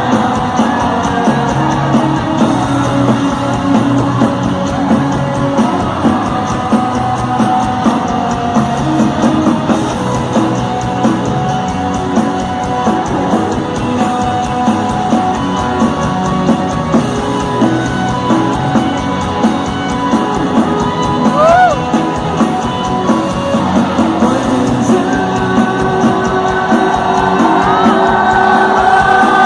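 Live rock band playing with a singer over a steady drum beat, loud in a large hall, with yells from the crowd.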